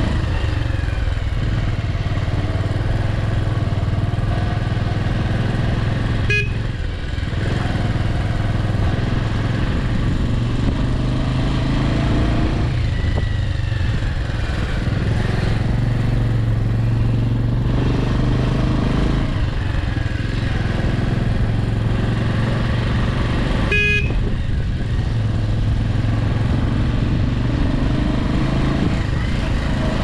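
A vehicle's engine running steadily while driving on the road, its pitch rising and falling with speed.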